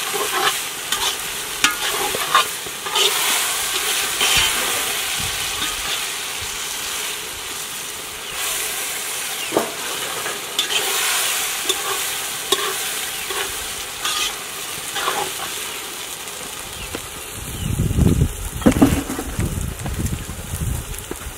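Metal spoon stirring potato greens in a metal pot over a wood fire, the just-added oil sizzling, with many short clicks and scrapes of the spoon against the pot. Near the end the stirring stops and low rumbling takes over.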